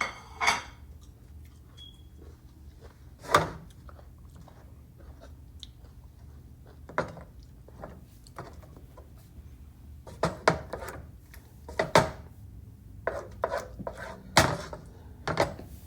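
Kitchen utensils knocking and clinking against a dish while food is spread and arranged in it. The strikes come irregularly, a few at a time, and cluster more densely in the second half.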